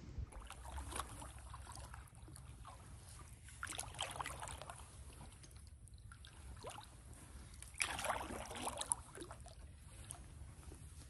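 Wooden canoe paddle stroking through still swamp water beside an aluminum canoe: soft swishes and drips, with a louder splashing stroke about four seconds in and another near eight seconds, over a low steady rumble.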